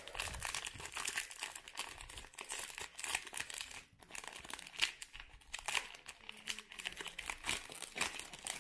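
Crinkling of the plastic wrapper of a Panini NBA Hoops basketball-card fat pack as it is handled and turned over in the hands: a run of irregular crackles.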